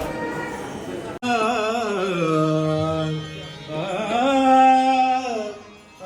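Background music: devotional singing in Carnatic style, starting abruptly about a second in. One voice glides through ornamented, wavering notes and then holds two long notes.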